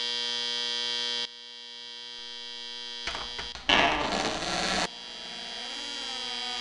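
Digital alarm clock buzzing loudly, cut off after about a second and a quarter, leaving a steady hum. About three seconds in come clicks and then a loud rattle of about a second at a door's lever handle; the hum wavers in pitch near the end.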